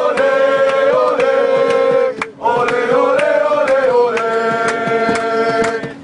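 Football supporters' terrace chant: many voices singing long, held notes in unison over a steady beat, with a brief break a little past two seconds in before the next phrase.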